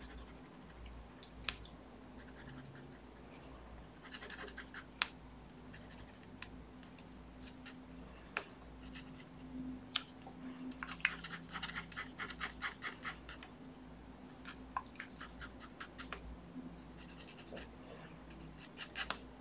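Black ink marker pen scratching on watercoloured paper in short runs of quick hatching strokes, with pauses between. The densest run of rapid strokes comes about halfway through.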